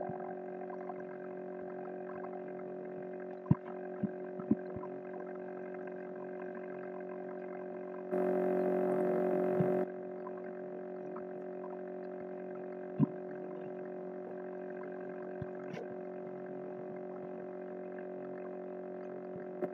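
A steady droning hum with many overtones, the background hum of the recording setup. A few short sharp clicks come about three and a half, four, four and a half and thirteen seconds in. From about 8 to 10 seconds a louder, hissier patch joins the hum.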